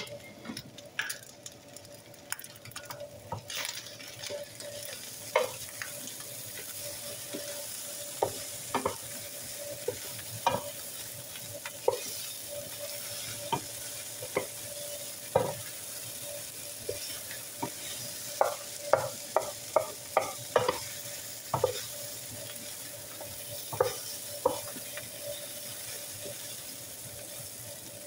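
Wooden spoon stirring chicken fried rice in a large skillet over the heat, with a steady sizzle and frequent sharp knocks and scrapes of the spoon against the pan, coming thickest a little past the middle.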